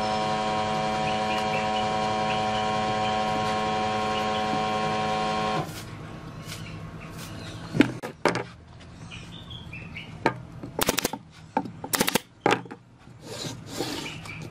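An air compressor's motor runs with a steady pitched hum, then cuts off suddenly about five and a half seconds in. After it, wooden frame pieces knock and slide on the workbench, with a few sharp cracks near the end.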